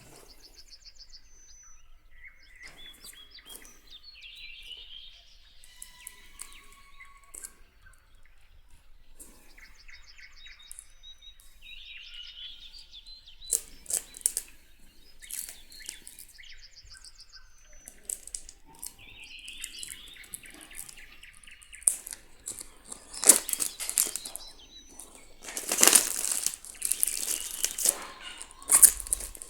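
Birds chirping and calling in the background. Then paper book pages are flipped and riffled in quick rustling sweeps, loudest over the last several seconds.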